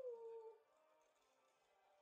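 A person's drawn-out vocal cry, like a long "oooh", falling in pitch and trailing off about half a second in, then near silence.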